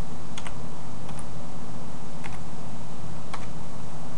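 Computer keyboard keystrokes: four separate clicks about a second apart, over a steady low hum.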